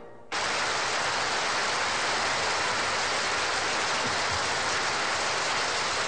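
Large hall audience applauding, a dense, steady clatter of many hands that cuts in abruptly just after the start.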